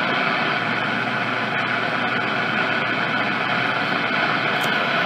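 Zenith Trans-Oceanic R600 tube radio's speaker giving a steady loud hiss of static, tuned to the 80-meter amateur band just below 3.8 MHz in AM.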